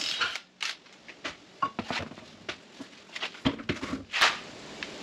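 Irregular clicks, knocks and scrapes as a removed car wheel and tyre is handled and shifted on a concrete floor, with a duller knock about three and a half seconds in and a sharp click just after four seconds.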